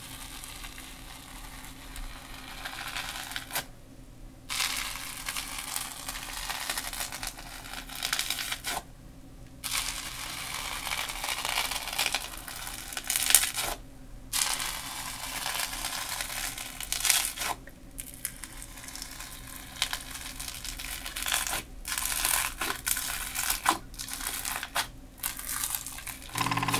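Clear bubbly slime being pressed, squeezed and swept by hand, its many small air bubbles crackling and popping with a crunchy, crispy sound. It comes in several stretches separated by brief silences.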